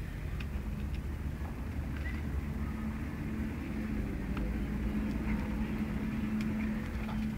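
Steady low hum of an engine running, growing a little louder after about two seconds, with a few faint clicks over it.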